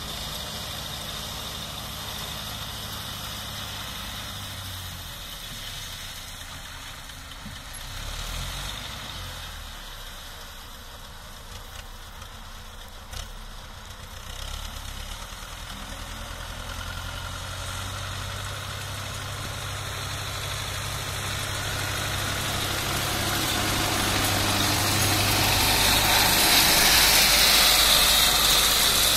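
Tractor diesel engine running steadily while it pulls a rotary drum mower through alfalfa, growing louder over the last several seconds as it comes closer.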